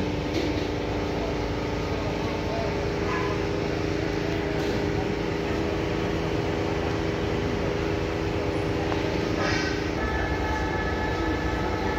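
A steady mechanical hum made of several held tones, unchanging throughout, with faint voices under it.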